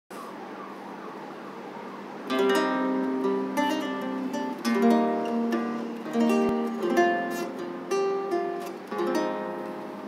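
A lute played with the fingers. After about two seconds of faint background noise, it sounds a slow series of plucked chords, about one a second, each left to ring.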